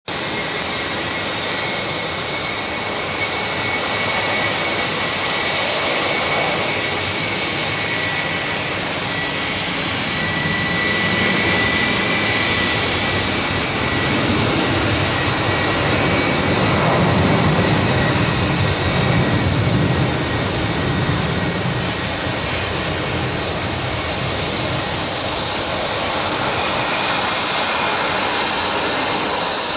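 Airbus A330 jet engines running: a steady high fan whine over a broad rumble. The low rumble swells a little past the middle, and a brighter hiss builds near the end.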